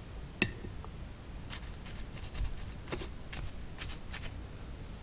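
A single sharp glassy clink about half a second in, like a small glass bottle set down on the workbench, followed by several faint light clicks and taps of small items being handled.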